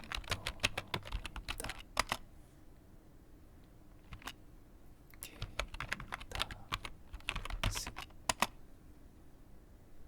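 Computer keyboard being typed on: a quick run of keystrokes, a pause with a single key press, then a second quick run of keystrokes.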